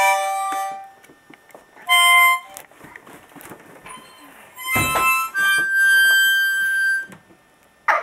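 Harmonica blown by a toddler in three separate chords with pauses between them. The first lasts about a second, the second is short, and the last is held for about two seconds.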